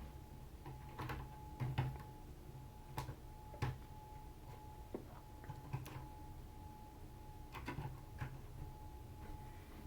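Faint, scattered clicks and light taps of plastic action figures and their parts being handled and set down, about eight in all at irregular spacing, over a faint steady high hum.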